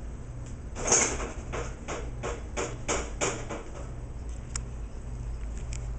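Shredded-paper bedding rustling in a quick run of short scrapes, about three a second, as a red-tailed boa coils around a rat it has just struck. A steady low hum runs underneath.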